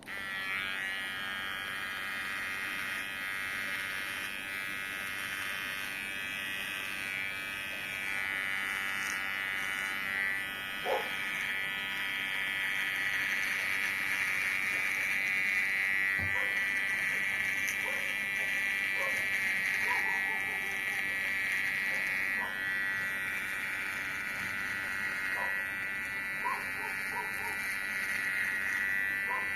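Kemei electric hair clipper switched on and running with a steady high-pitched buzz while trimming a beard.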